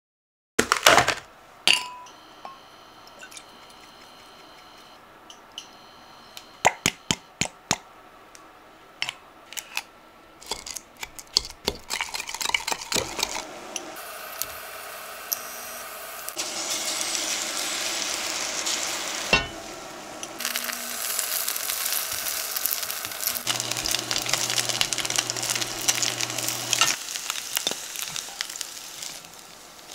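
Kitchen utensils clicking and clinking against dishes, then food sizzling in a frying pan: a steady hiss for most of the second half, broken briefly a few times.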